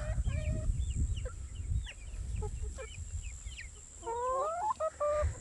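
Mixed flock of Silkie and Sussex chickens clucking and chirping, with a louder, wavering call from one bird about four seconds in.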